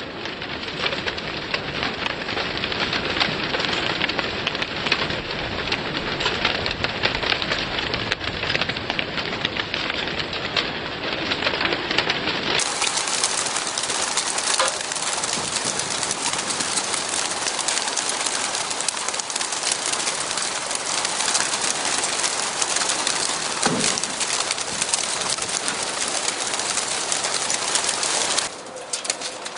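A transporter load of racing pigeons in their crates: a dense, steady mass of cooing and rustling, with wings clattering as the birds are let out and fly off.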